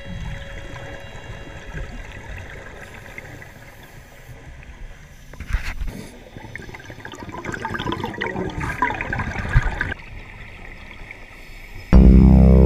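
Scuba diving heard underwater: muffled water noise with gurgling, crackling exhaust bubbles from a diver's regulator, loudest from about six to ten seconds in. Background music comes in abruptly near the end.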